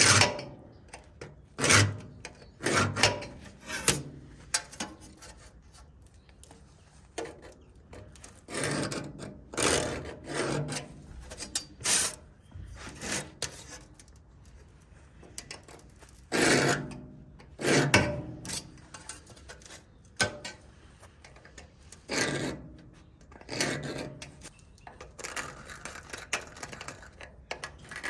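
Irregular strokes of a hand file rasping on steel, one stroke at a time with short pauses between.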